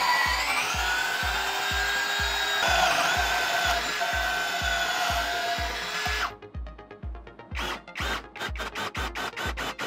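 Cordless drill-driver (WORX WU177) running, its motor whine shifting in pitch, then stopping about six seconds in. A run of short bursts follows, coming quicker and quicker, while background music keeps a steady beat throughout.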